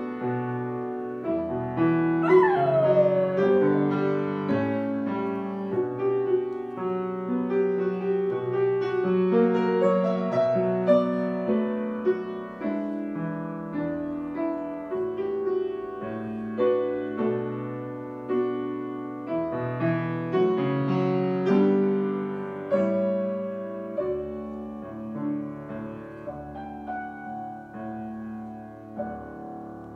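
Yamaha grand piano playing a slow melody, with a schnauzer howling along once about two seconds in, a long howl that slides down in pitch. After that the piano plays on alone and gets quieter toward the end.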